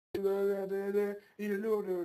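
A voice singing long, steady held notes: one note of about a second, a short break, then a second note.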